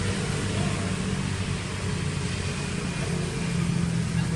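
An engine running steadily: a low, even hum under a broad hiss.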